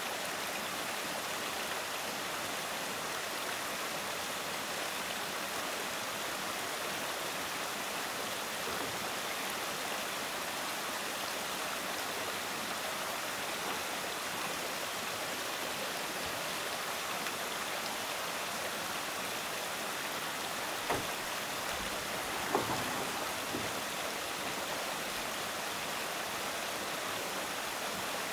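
Steady rushing of flowing water, like a nearby stream, with a couple of light knocks about three-quarters of the way in.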